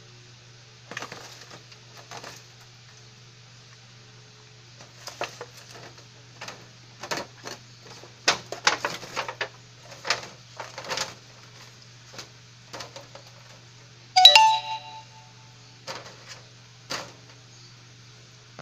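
Utensil stirring leafy greens in a stainless steel saucepan: irregular scrapes, clinks and knocks against the pot, with one loud ringing clang of metal on the pot rim near the end. A low steady hum runs underneath.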